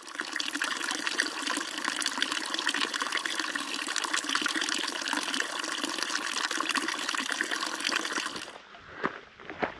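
Water pouring steadily from a fountain spout into a stone trough, a continuous splashing. About a second before the end it cuts off and a few footsteps follow.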